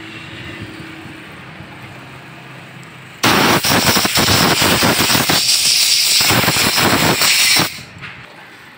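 Compressed-air blow gun blasting into a motorcycle carburettor's float bowl to clear out dirt. A loud, rough hiss starts about three seconds in and cuts off sharply some four and a half seconds later.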